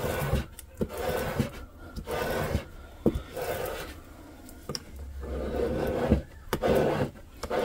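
A scraper tool rubbed back and forth over transfer tape on a vinyl stencil, in repeated rubbing strokes about one a second with a few light clicks. The tape is being burnished down so that the small vinyl pieces stick to it.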